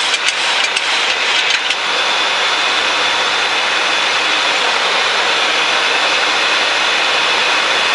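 Steady rushing flight-deck noise of a Boeing 737-800 in flight, with air streaming past the cockpit and the engines running, and a faint steady high tone above it. A few faint clicks come in the first couple of seconds.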